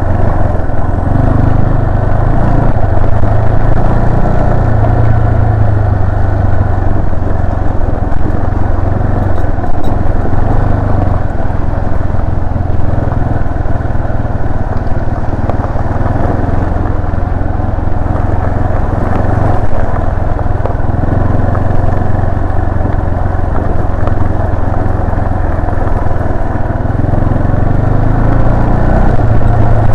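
Yamaha Serow 250's air-cooled single-cylinder engine running steadily at low revs as the bike rides along at an easy pace, the pitch rising and falling only slightly.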